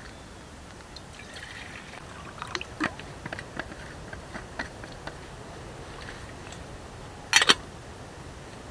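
Water poured from a bottle into a steel camp mug, then a run of sharp clicks and crackles. About seven seconds in, a metal lid clanks onto the mug, the loudest sound.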